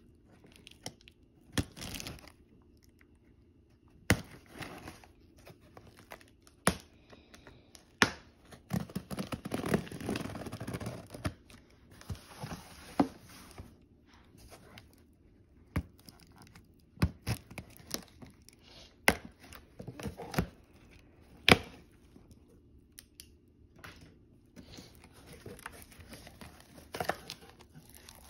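Packing tape on a cardboard box being slit and torn open with a pen, with the cardboard flaps scraping, tapping and being pulled open. Sharp taps come at irregular intervals, and there is a longer stretch of tearing about ten seconds in.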